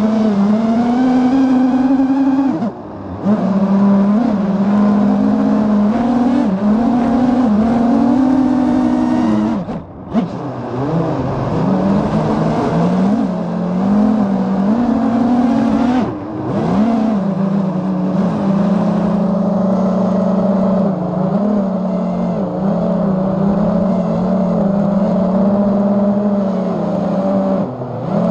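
FPV racing quadcopter's electric motors and propellers whining, heard from the drone's onboard camera, the pitch rising and falling constantly with the throttle. The whine drops away briefly four times during the flight.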